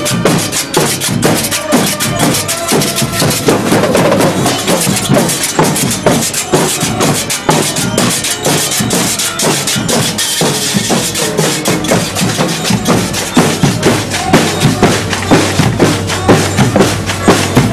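School marching drum band playing: snare and bass drums beating a steady march rhythm, with hand cymbals crashing.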